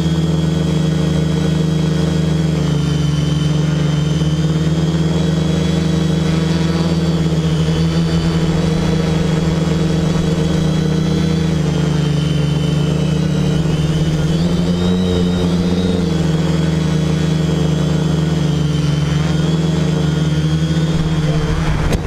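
X525 quadcopter in flight: its four 1000kv brushless outrunner motors and 10x4.5 propellers drone steadily, the pitch wavering slightly as the throttle changes.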